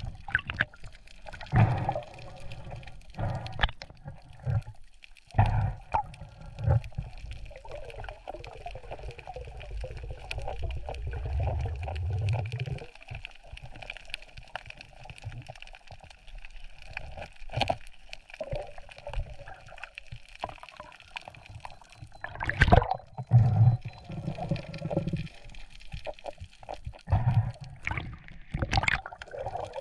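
Rough seawater sloshing and gurgling close to the microphone, with irregular splashes, the loudest about three-quarters of the way through.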